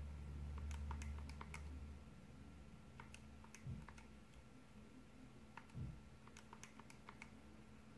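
Faint clicks of calculator keys tapped in short quick runs, entering a calculation. A low hum sounds over the first two seconds, and there are two soft low thumps.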